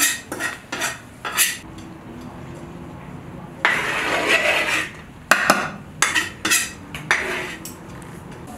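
Metal skimmer scraping and stirring rice against the sides of a large metal kazan of plov: a run of short scrapes, a longer scrape of about a second and a half around four seconds in, then several more short scrapes.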